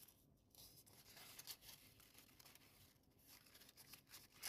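Near silence, with faint rustling and crinkling of stiff folded origami paper as a unit is slotted into a kusudama, and a slightly louder crinkle at the very end.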